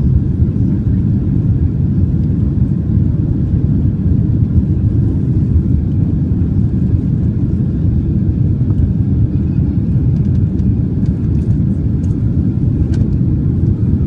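Boeing 767 takeoff noise heard from inside the cabin: a steady low rumble of the jet engines and airflow.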